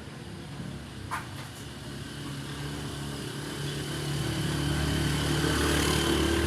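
A motor vehicle engine running steadily, growing louder through the second half and loudest near the end. A short click about a second in.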